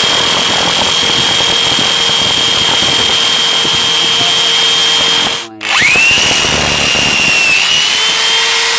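Bosch GBH-200 hammer drill running steadily with a high whine as a worn bit grinds slowly into a steel bicycle frame. About five and a half seconds in the sound briefly drops out, then comes back with a rising whine as the motor spins back up.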